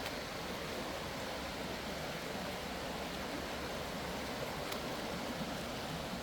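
Creek water rushing steadily, the stream running full after days of rain.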